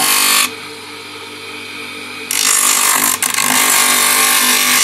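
Electric disc sander grinding a wooden machete-sheath blank pressed against its abrasive disc, flattening the wood: a loud, steady rasping hiss over the motor's hum. About half a second in the grinding drops away for nearly two seconds, leaving only a quieter hum, then resumes, with a single sharp click about three seconds in.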